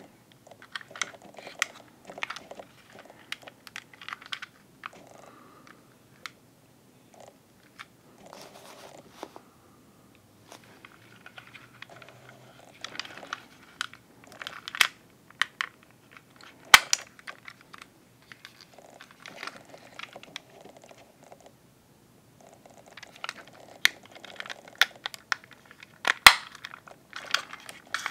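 Plastic Transformers figure in orange car mode being handled and its parts shifted: a run of small plastic clicks and snaps with soft handling rustle and short quiet pauses, two sharper snaps about 17 and 26 seconds in.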